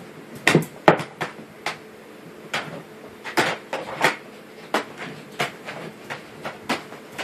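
A corgi shifting and pawing about in its bedding inside a wire crate: a quick string of sharp knocks and scratches, loudest about a second in and settling to about three a second in the second half.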